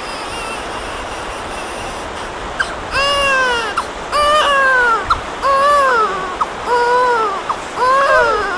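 A baby crying: about five wails, each rising and then falling in pitch, roughly a second apart, starting about three seconds in over a steady hiss.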